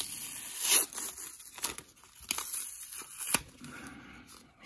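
Blue painter's tape being peeled and ripped off plastic card wrapping, with the plastic crinkling. There are several short sharp rips, the loudest about three-quarters of a second in.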